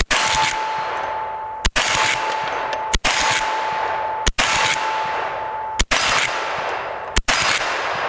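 A Marlin 1894 CST lever-action rifle chambered in .357 Magnum fired in quick succession: six shots about a second and a half apart, each trailing off in a long ringing echo.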